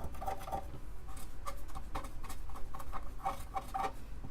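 Quick, irregular scratchy rubbing strokes: surface rust being scrubbed off an Amiga 500 circuit board with alcohol.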